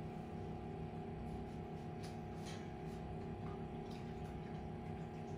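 Steady low hum with a few faint ticks about two seconds in.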